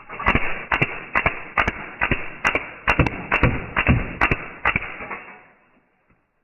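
A lithium battery venting after being shot with BB gun pellets: a loud rushing hiss with about a dozen sharp pops and cracks at uneven spacing, roughly two a second, the hiss dying away after about five seconds.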